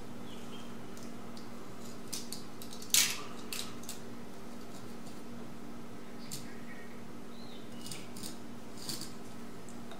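A small knife blade scratching and scraping over the painted base of a shed antler in short, scattered strokes, scoring lines into the softened paint, with one sharper, louder scrape about three seconds in.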